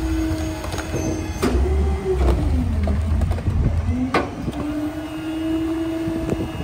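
Garbage truck engines and hydraulics running with a steady whine and a deep rumble beneath it as a mini garbage truck's raised dump body empties into a rear loader's hopper. About halfway through, the whine sags in pitch and climbs back, with a sharp clunk before and after.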